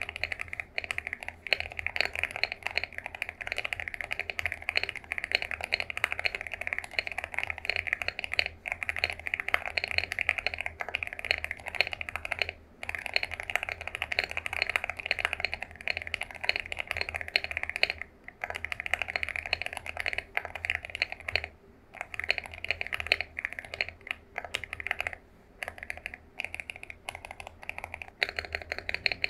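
Fast, continuous typing on an Epomaker AULA F75 mechanical keyboard with linear switches. It is a dense run of key clicks with a few short pauses.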